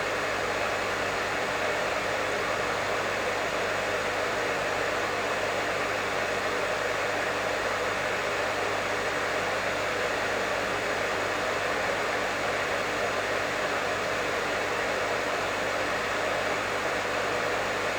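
Professional hair dryer running steadily: an even blowing rush with a constant low hum underneath.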